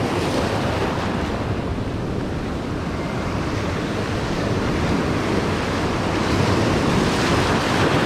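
Ocean surf breaking and washing over rounded beach boulders, with wind on the microphone. A wave surges in a little louder near the end.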